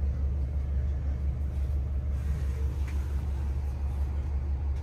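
Bus running, heard from inside the cabin: a steady low rumble.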